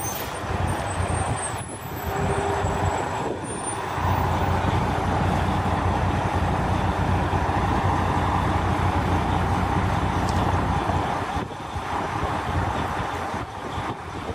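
Diesel engine of an MCI highway coach bus running close by, a steady low drone that grows louder about four seconds in and eases off near the end.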